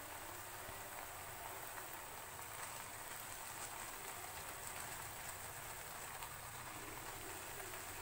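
Onion-tomato masala gravy simmering in butter on a cast-iron dosa tawa, a steady faint sizzle with small scattered pops and spits.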